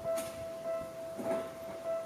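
Japanese railway level-crossing warning bell ringing in a steady repeating tone, a little under two rings a second, while a train runs past.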